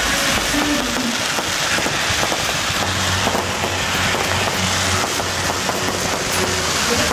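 Fireworks display crackling and popping steadily: a continuous hiss of sparks with many small pops and no single big bang. A low hum joins in about three seconds in.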